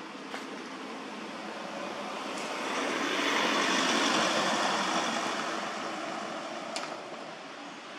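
A passing vehicle: a rushing noise that swells about three seconds in and fades away by about seven seconds, over steady background noise, with a faint click near the end.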